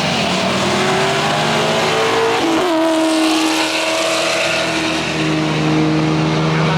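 A car engine held at high revs with tyres squealing, as in a car doing donuts. The engine note climbs for the first two and a half seconds, dips, then holds steady under a constant hiss of tyre squeal.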